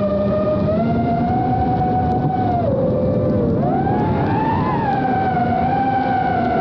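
FPV quadcopter's motors and propellers whining as heard from its onboard camera: a cluster of close tones that dips in pitch about three seconds in as the throttle eases off, then rises back and holds steady.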